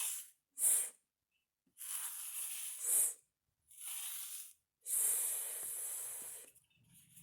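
A voice hissing the sustained "sss" sound of the letter s, about five times, the later ones drawn out for a second or more with short pauses between.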